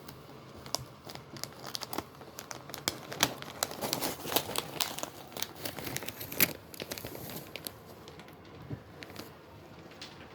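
Plastic packaging crinkling and rustling as it is handled and pulled at, with a dense run of sharp crackles in the middle that thins out near the end.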